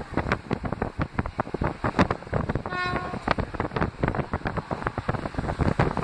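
Wind buffeting the microphone at the window of a moving train, with rail running noise. About three seconds in, a short single-pitched train horn note sounds.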